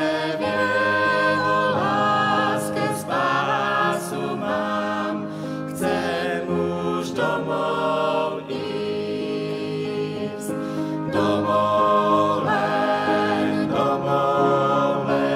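Mixed vocal quartet of two men and two women singing a sacred song in parts, accompanied by an upright piano.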